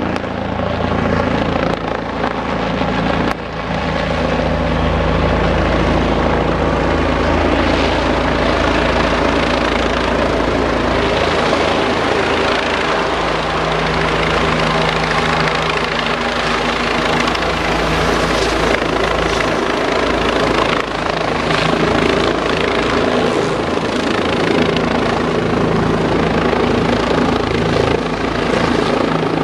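Bell 429 twin-turbine helicopter close overhead, descending to land on a rooftop helipad, its rotor and engines loud and steady.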